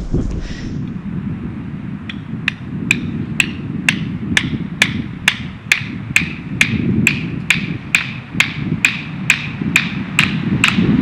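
Sharp clicks, evenly spaced at about two a second, beginning about two seconds in, over steady wind noise on the microphone.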